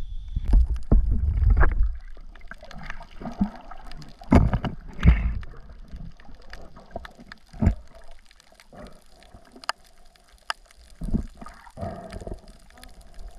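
Water sloshing and gurgling around a camera held underwater, with irregular low surges and scattered sharp clicks.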